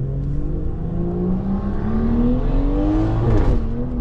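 Tuned BMW 540i's turbocharged inline-six, with catback exhaust and downpipe, pulling hard as the revs climb steadily through a gear, then an upshift about three seconds in with a short rough burst before the revs drop.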